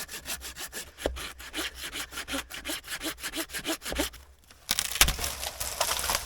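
A hand saw cutting through a dead tree in quick, even back-and-forth strokes, about five a second. Near the end the strokes stop and the dry wood gives a loud burst of cracking and snapping as it breaks.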